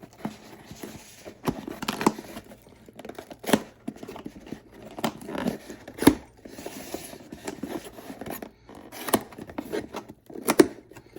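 A cardboard box being cut and torn open with a Swiss Army knife: irregular cutting, tearing and rustling of tape and packaging, broken by sharp knocks and clicks of the box and knife.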